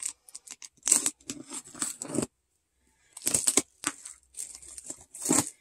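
Packing tape and cardboard flaps of a shipping box being cut and torn open with a small box cutter: a series of short scraping, tearing sounds, with a pause a little before the middle.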